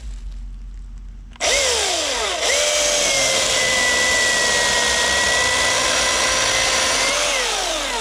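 Milwaukee M18 Fuel cordless electric chainsaw with an Oregon 16-inch bar and chain, spinning up about a second and a half in with a steady motor whine and cutting through a small log. It holds its speed through the cut without bogging or binding, then winds down with falling pitch near the end.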